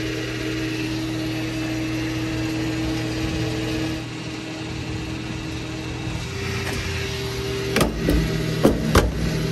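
Gas pump running with a steady hum while fuel flows through the nozzle into a car's tank. Near the end, a few sharp clunks as the nozzle is handled and hung back on the pump.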